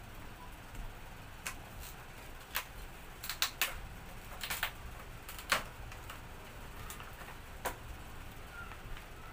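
About a dozen irregular sharp clicks and taps, some in quick pairs, over a faint steady low hum.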